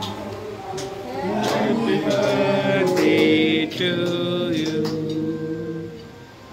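A small group of people singing a birthday song together, the voices holding long, drawn-out notes.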